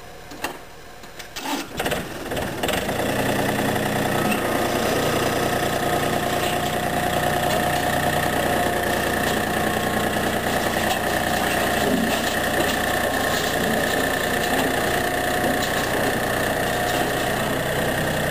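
John Deere compact diesel tractor engine starting about two seconds in, then running steadily while the tractor backs up.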